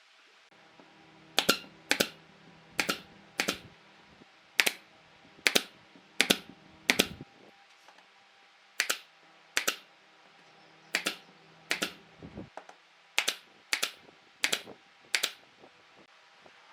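A series of about sixteen sharp strikes from woodworking tool work, most of them in pairs roughly half a second apart, over a faint steady low hum.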